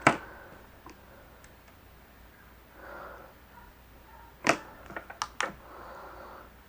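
Light clicks and taps from handling small phone parts and tools on a work surface, with a quick cluster of sharp clicks about four and a half to five and a half seconds in.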